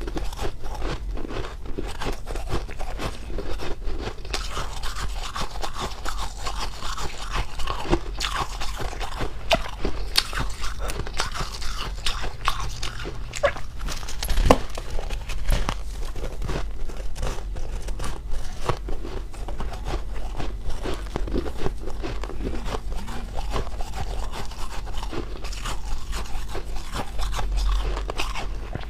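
Ice cubes being bitten and chewed close to the microphone: a continuous run of crunching and cracking, with one sharper, louder crack about halfway through.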